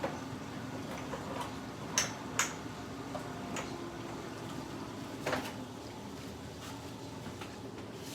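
Kitchen containers being handled and shifted about while someone looks for a spice: two sharp clicks about two seconds in and another knock a few seconds later, over a steady low hum.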